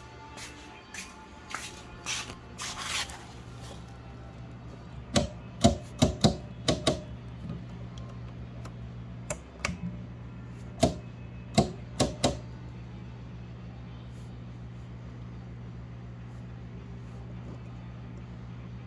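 Sharp clicks and clunks over a steady low electrical hum. A few light clicks come early, then a quick run of loud clunks about five to seven seconds in, and another short run about eleven to twelve seconds in.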